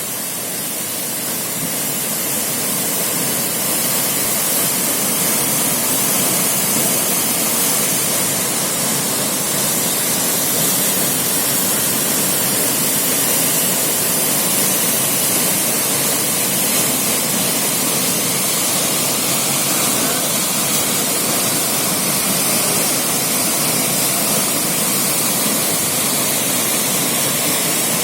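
Waterfall: a steady rush of falling water, growing a little louder over the first few seconds and then holding even.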